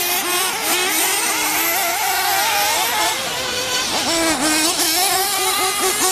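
Several nitro-powered 1/8-scale RC truggies' small two-stroke glow engines racing at once, their high whines overlapping and rising and falling as they rev up and lift off through the corners.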